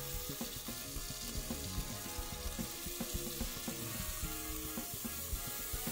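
Beef chuck steak sizzling as it sears in a hot stainless steel pan, with background music playing along with a steady beat.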